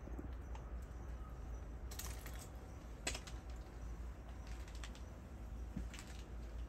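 Quiet outdoor ambience: a steady low rumble with a few scattered sharp clicks and ticks.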